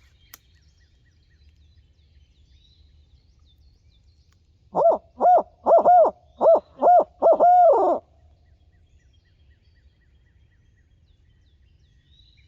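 Owl hooting, about five seconds in: a run of about eight short rising-and-falling hoots over three seconds, the last one drawn out, in the rhythm of a barred owl's 'who cooks for you, who cooks for you all' call.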